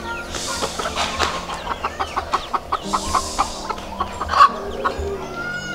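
Hens clucking in short calls, about three or four a second, over soft background music with long held notes.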